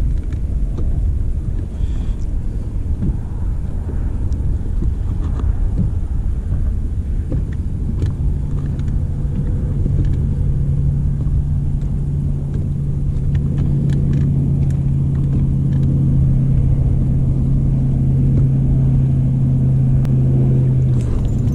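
Wind rumbling on the microphone. From about eight seconds in, a steady low hum joins it, which is an electric trolling motor running on the boat's bow.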